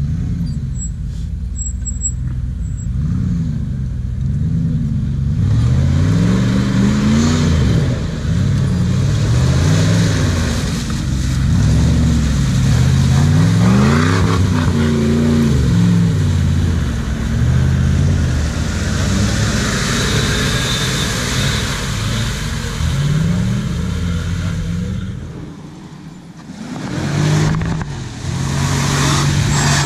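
Jeep Grand Cherokee engine revving up and down again and again as it is driven through mud, its pitch climbing and falling every second or two. Near the end it drops away briefly, then revs up again.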